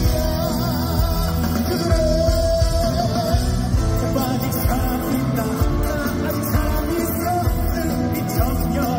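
A song performed with singing over band accompaniment and a steady beat, the held sung notes wavering with vibrato.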